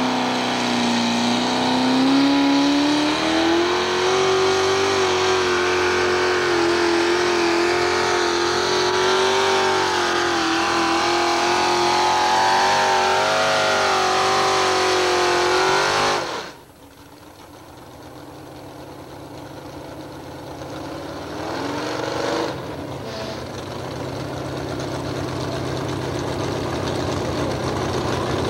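Pulling-tractor engine at high revs during a pull, its pitch climbing in the first few seconds and then holding high before cutting off abruptly about 16 seconds in. After that a lower engine idles, slowly getting louder, with one brief rev about six seconds later.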